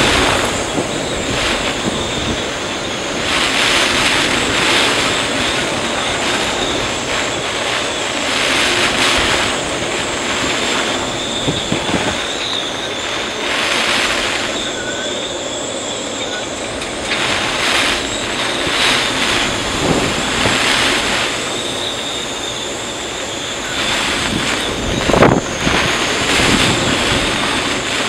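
Storm wind blowing in strong gusts that buffet the microphone, with heavy surf breaking against the harbour breakwater, the noise surging and easing every second or two. One sharper thump stands out near the end.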